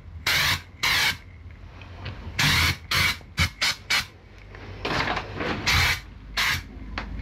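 Aerosol can of Raptor liner coating spraying in a series of short hissing bursts, about a dozen, some in quick succession and a few longer.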